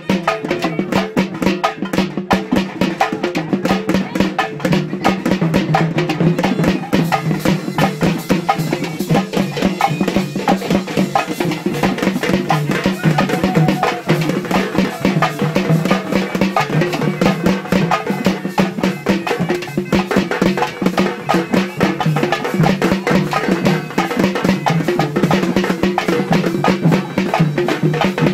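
Rapid, continuous festival procession drumming from hand-struck drums, over a steady low held tone.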